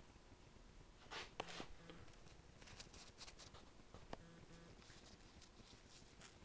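Near silence, with a few faint taps and rubs from a small brush being dipped into a glue container and dabbed onto the fabric, and a brief faint buzz about four seconds in.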